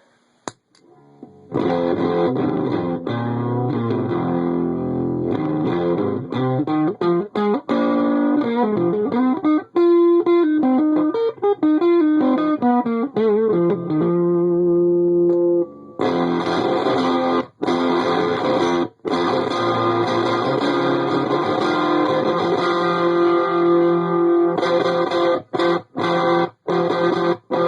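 Electric guitar played through a breadboard prototype dropout fuzz pedal with its boost stage removed, into a clean Marshall JCM-style amp. Fuzzy chords and notes start about a second and a half in, cutting off abruptly to silence several times.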